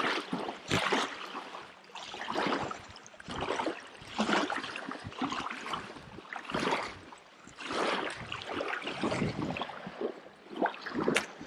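Small waves lapping and splashing against a gravel shoreline, in washes every second or two.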